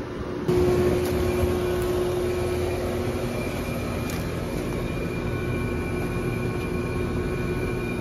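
Residential heat pump outdoor units running in cooling mode, heard up close: a steady compressor hum and condenser-fan rush with a low and a high tone held over it, getting louder about half a second in. One of the old Trane units is making some funky noises.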